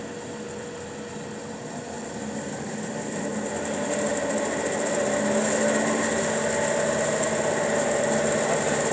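Doall 1612-1 16-inch vertical band saw running without a cut in its high speed range, its drive and blade getting louder over the first five seconds as it comes up to speed, then running steadily.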